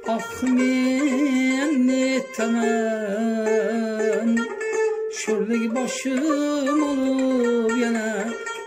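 Uzbek traditional music: a melody of long held notes with ornamented turns, over plucked-string accompaniment, with short breaks between phrases.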